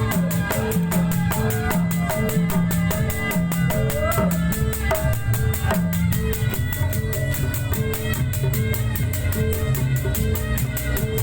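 Loud, fast 'sound balap' dance music with a rapid, steady drum beat and a repeating bass line, played over a contest sound system.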